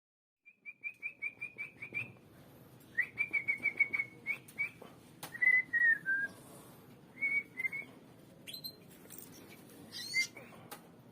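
Bird chirping: rapid runs of short, high chirps at about six a second, a few slurred falling notes near the middle, and a quick rising squeak near the end.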